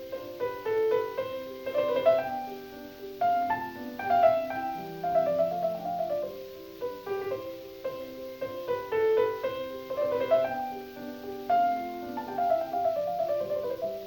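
Background piano music: a gentle melody of struck notes over a simple accompaniment.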